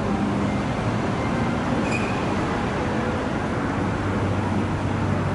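Kintetsu electric train approaching on curved track, a steady rumble of wheels and running gear with a low motor hum. A brief high-pitched tone sounds about two seconds in.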